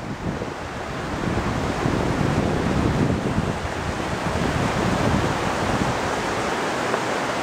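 Rushing stream water, a steady wash, with wind buffeting the microphone.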